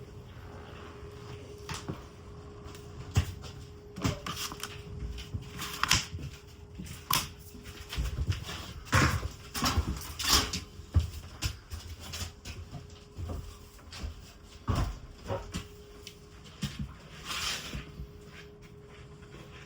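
Irregular knocks, clunks and scrapes of hand work, some sharp and loud, with a faint steady hum underneath.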